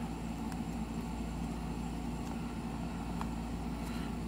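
Steady low background hum, with a faint click or two of trading cards being shuffled in the hands.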